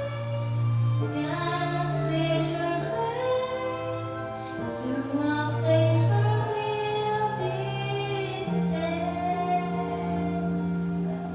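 A woman singing a slow song into a condenser microphone over a backing track, her melody above long held bass notes.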